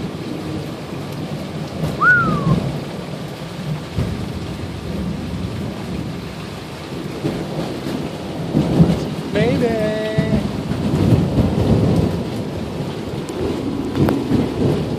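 Steady heavy rain with rolling thunder during a night thunderstorm. The rumbling swells about two seconds in, and again more strongly from about seven to twelve seconds.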